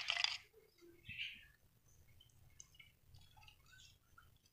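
Beaten eggs poured into hot oil in a frying pan give a short hissing sizzle at the start. After that it is mostly quiet, with a few faint, short, high chirps.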